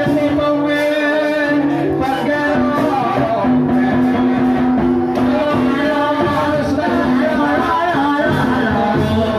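Music with singing, the accompaniment for an ebeg (kuda lumping) trance dance, with long held notes.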